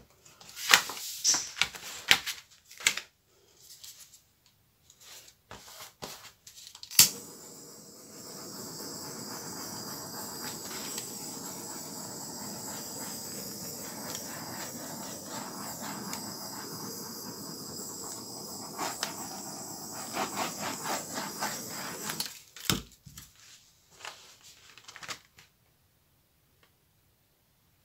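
Handheld butane torch lit with a sharp click, then hissing steadily for about fifteen seconds as it is passed over wet poured acrylic paint, before cutting off. Light clicks and knocks of the canvas being handled come before and after.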